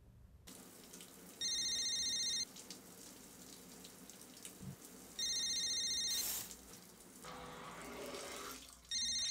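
Mobile phone ringing with a trilling electronic ring: three rings of about a second each, a few seconds apart, over the steady hiss of a running shower.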